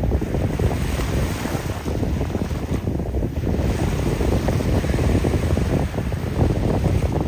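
Wind buffeting the microphone in a dense, fluttering rumble, over the steady wash of surf on the beach.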